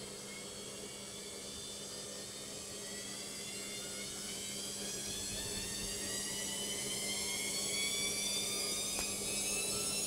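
Logik front-loading washing machine spinning up in its spin cycle: the drum motor's whine rises steadily in pitch and grows louder as the drum gathers speed, over a steady low hum.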